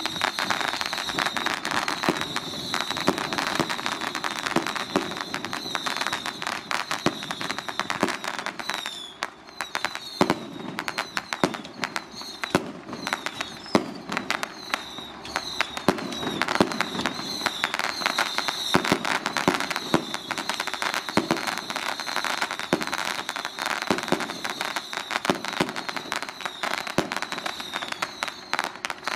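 Strings of firecrackers popping in a dense, irregular, continuous crackle, with a steady high-pitched tone running underneath.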